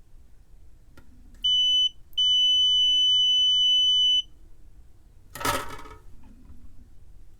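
Digital multimeter's continuity beeper sounding a steady high tone, once briefly and then for about two seconds, which signals a low resistance between the probes across the circuit board. A short rustle of handling follows a second later.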